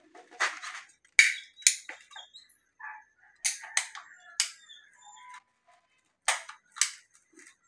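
Sharp, irregular clicks and knocks of a metal hand tool working a fitting on a blue PVC water pipe, about eight strikes spread unevenly.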